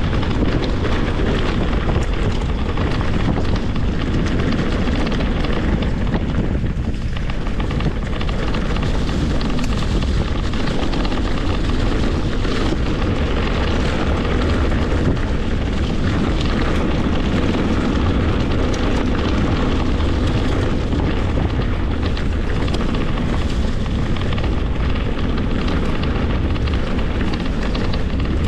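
Mountain bike moving over a trail: steady wind rushing over the microphone, with the tyres and bike rattling and knocking over the ground.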